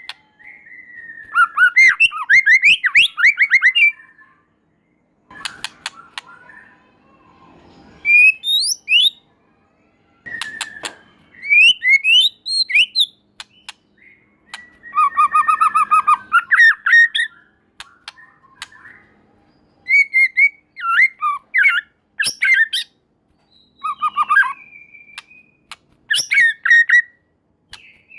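White-rumped shama singing loud, varied phrases of clear whistles, rapid trills and sharp clicks, a new phrase every two to four seconds with short pauses between.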